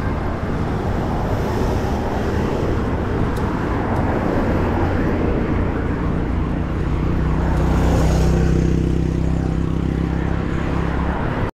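Road noise and low wind rumble from a bicycle riding in city traffic, with the engines of passing cars underneath. A motor vehicle's engine hum grows louder around eight seconds in, then the sound cuts off suddenly near the end.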